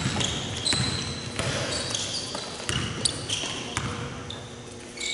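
Basketball shoes squeaking sharply again and again on a hardwood gym floor, with a basketball being dribbled and thumping on the court.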